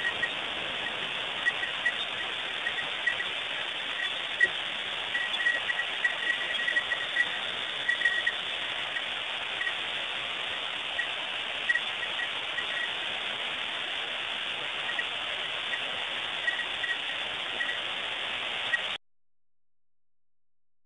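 Heavy rain falling steadily, a dense hiss with many irregular sharp drop impacts. The sound cuts off abruptly to near silence about 19 seconds in.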